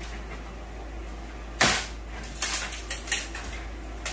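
Lumber from a torn-out wall being handled: one sharp wooden knock about a second and a half in, then a few lighter knocks and clacks, over a steady low hum.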